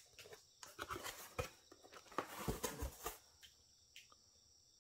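A corrugated cardboard box being opened by hand: faint rustles, scrapes and light taps as the flaps are folded back, busiest in the middle, then only a few small ticks.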